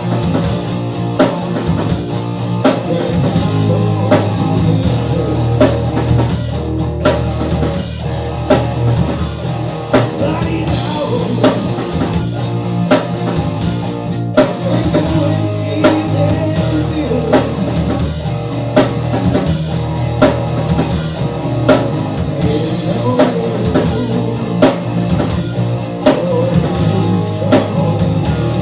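Rock music with drum kit, electric guitar and bass, the drums keeping a steady beat of about two hits a second.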